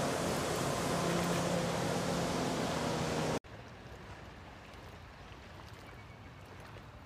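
Motorboat engine running steadily at speed, a loud, even drone with a steady pitched hum. It cuts off abruptly about three and a half seconds in, leaving only a faint, even outdoor background.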